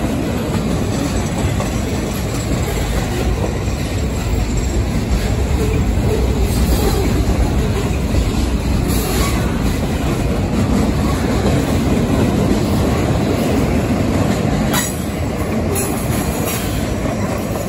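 Loaded freight cars carrying logs and lumber rolling past close by: a steady, loud rumble of steel wheels on rail with the clickety-clack of the wheels. A few brief sharp sounds break in, most of them in the last few seconds.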